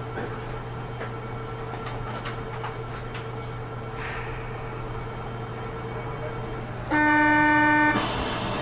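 Osaka Metro 200 series New Tram car standing at a station with a steady electrical hum and faint clicks. About seven seconds in, a loud buzzer sounds for about a second, the door-closing warning before departure, and the car's running noise starts to rise after it.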